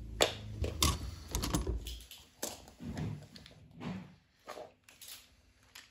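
Beyblade spinning top whirring and rattling against a plastic stadium floor. The whirr stops about two seconds in, and a few scattered clicks and knocks follow.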